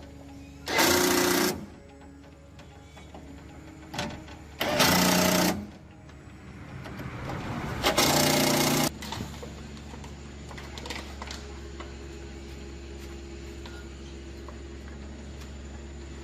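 Three short bursts of a motorised tool running, about a second each, then a steady low hum.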